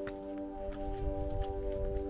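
Background music of long held tones, with a low rumble and a few faint clicks underneath.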